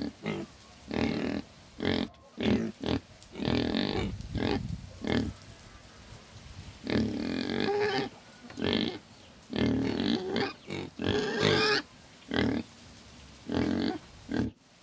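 Pig grunting in a rapid, irregular series of short grunts, with a few longer pitched calls about seven and eleven seconds in.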